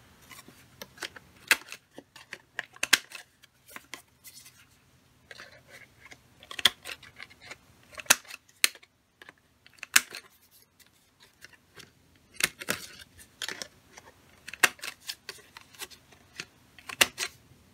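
A We R Memory Keepers Crop-A-Dile Corner Chomper, a hand-squeezed corner-rounding punch, snapping through cardstock corners. It makes about a dozen sharp clicks at irregular intervals, some in quick pairs.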